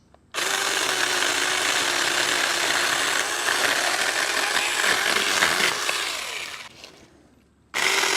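Saker 4-inch cordless mini chainsaw running with its steady electric-motor whine as the chain cuts through a short log, for about six seconds before winding down. It starts up again abruptly near the end.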